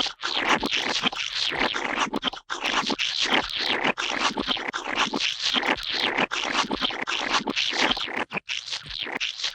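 A rapid run of wet, gooey splat and squelch sound effects, one after another with brief gaps between them.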